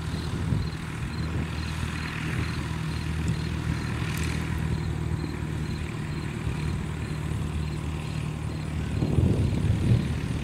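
Piper PA-28 Cherokee Archer's four-cylinder Lycoming engine and propeller running steadily at low taxi power as the plane rolls past. A louder, gusty low rumble comes in about nine seconds in.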